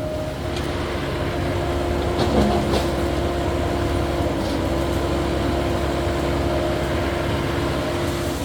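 Caterpillar 308E2 mini excavator running steadily while working, its engine drone carrying a steady whine, with a couple of short knocks about two and a half seconds in.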